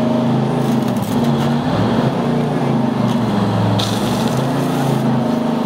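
Giant robot Eagle Prime's V8 engine running, its pitch rising and falling as it works, with a short hiss about four seconds in.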